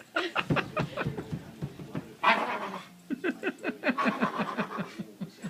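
Black Labrador retriever puppy whining and whimpering in a quick run of short, falling cries, with a louder, harsher cry a little over two seconds in.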